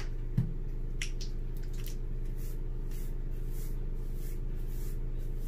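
Soft squishing and swishing of hands working conditioner through wet, coily hair. A dull thump and a couple of sharp clicks come in the first second or so, over a steady low hum.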